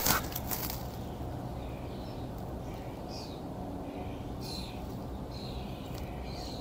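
Small birds chirping faintly with short, falling calls over a steady low rumble of city background noise, with one sharp click right at the start.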